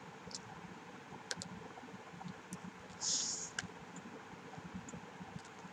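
Faint chewing of fairy bread: scattered soft clicks and small crunches from the mouth and sprinkles, with a short breathy hiss about three seconds in.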